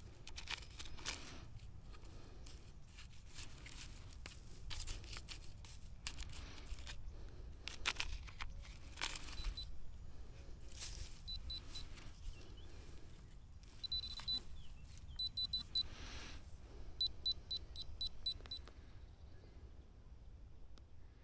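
Metal detector giving short, high electronic beeps from about halfway in, ending in a quick run of about six, a signal that it has picked up metal in the ground. Under it, scattered rustling and knocks.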